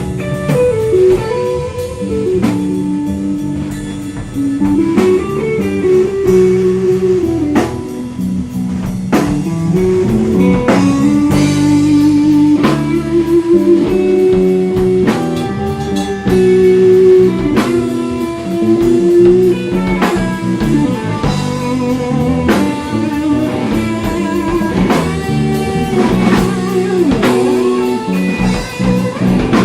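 Live instrumental rock-fusion band playing: an electric guitar carries a melodic lead of held, bending notes over a drum kit.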